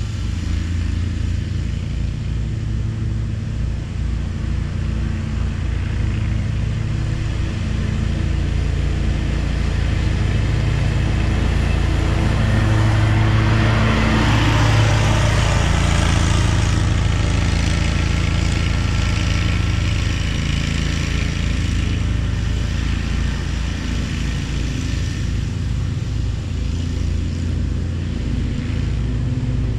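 An engine running steadily with an even low throb, and a swell of rushing noise about halfway through.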